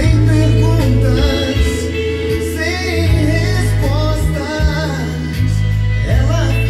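A song with singing over steady bass notes, played back from a cassette on a Pioneer CT-W203 double cassette deck through a Gradiente Model 120 amplifier and loudspeakers.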